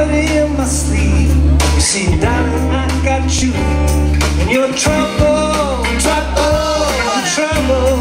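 Live band playing a song, a vocalist singing over held bass notes.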